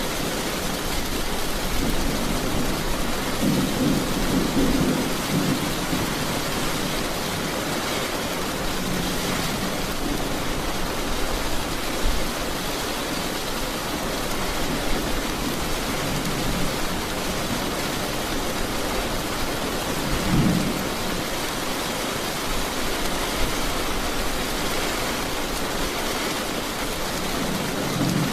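Steady rain falling through a thunderstorm, with low rolls of thunder a few seconds in and a shorter, louder rumble about two-thirds of the way through.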